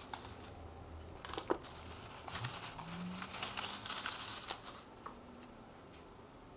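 Crinkling and rustling of a white wrapper handled and crumpled in the hands, stopping about five seconds in.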